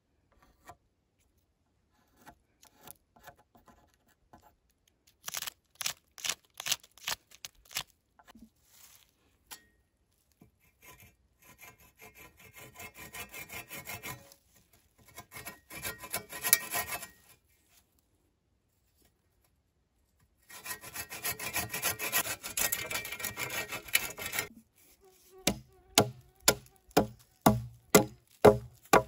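Wood being sawn by hand in rapid back-and-forth strokes, in several bouts with pauses between them. Near the end it gives way to a steady run of sharp knocks, about two a second.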